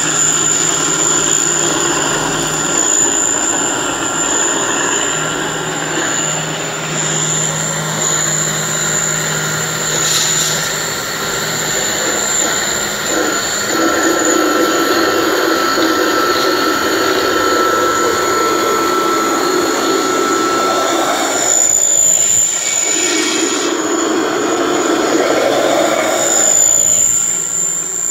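Peanut butter grinding machine running steadily under load, grinding roasted peanuts into paste, with a constant high whine over the motor and grinding noise.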